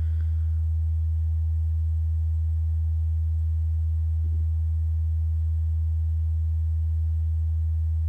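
Steady low hum: one unchanging low tone with nothing else over it.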